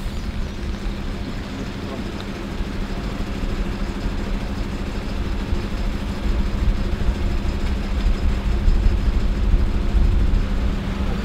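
Coach bus engine idling with a steady low hum, growing a little louder in the second half.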